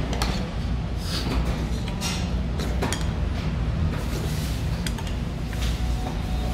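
Spoonfuls of seolleongtang (ox-bone soup) being eaten, with short slurps and a metal spoon clinking against a bowl several times, over a steady low hum.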